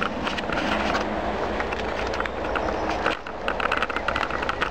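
A bicycle being ridden over a rough towpath: wind on the microphone and a rapid rattling crackle from the tyres and the bike-mounted camera. The sound changes briefly about three seconds in, and the rattling is denser after that.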